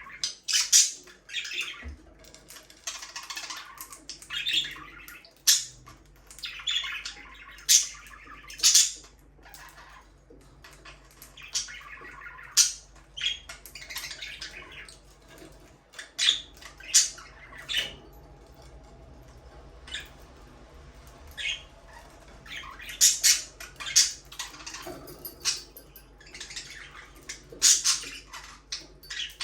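Budgies (budgerigars) chirping and chattering, with many short, sharp squawks and warbling passages, irregular and sometimes overlapping, quieter for a few seconds about two-thirds of the way through.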